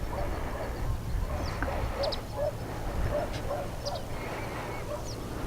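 Short animal calls repeated every half second or so, with a few brief high bird chirps, over a steady low rumble of wind on the microphone.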